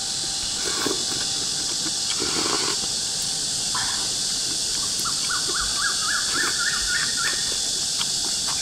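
Steady high hiss of insects, with a bird giving a rapid run of rising chirps for about two seconds past the middle, and a few soft sipping and chewing sounds near the start.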